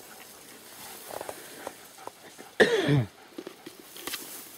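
Rustling and footsteps through tall grass, then about two and a half seconds in a dog gives one short, loud yelp that falls in pitch.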